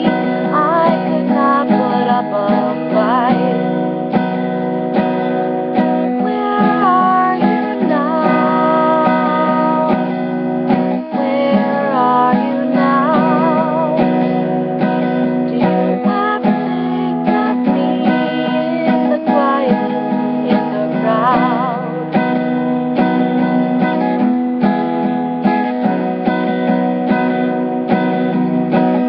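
A woman singing while strumming a steel-string acoustic guitar, the chords ringing steadily under her voice, which holds some notes with a wavering vibrato.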